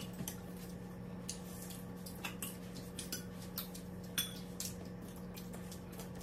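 Spoons and forks clinking lightly against plates and bowls as several people eat, a scattered handful of small clinks over a steady low hum.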